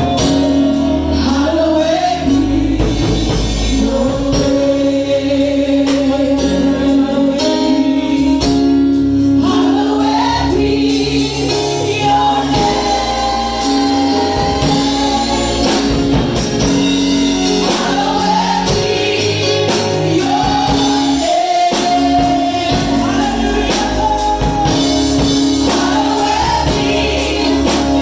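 Gospel worship music: singers carrying a sustained melody over a band with steady held chords and bass.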